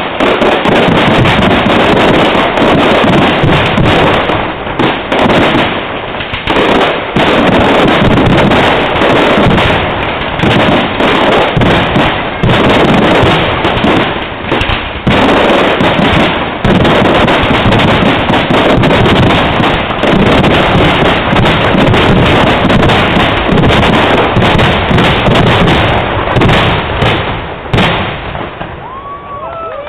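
Fireworks display: aerial shells bursting in a dense, nearly continuous barrage of overlapping bangs and crackle, very loud. It eases off near the end.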